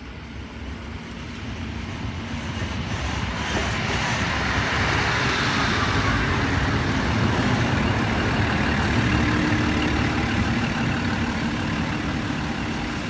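Endeavour diesel railcar set running into the platform and drawing to a stop alongside: its diesel engines and steel wheels on the rails grow louder over the first five seconds, then hold steady.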